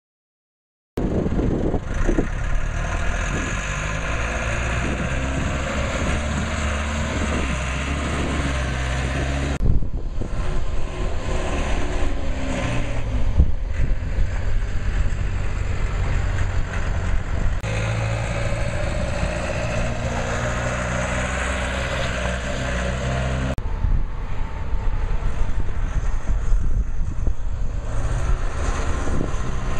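American Coleman aircraft tug's engine running as the tractor drives about, its note stepping up and down with speed. The sound breaks off and changes abruptly a few times.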